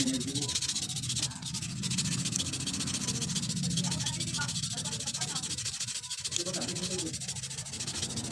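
Sandpaper rubbing rapidly back and forth on the rusty metal shaft of a spin dryer motor's rotor, scrubbing off rust to smooth the shaft.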